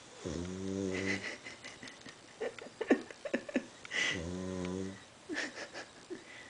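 Sleeping dog snoring: two drawn-out, buzzing snores about four seconds apart, each about a second long, with short snuffling breaths between them.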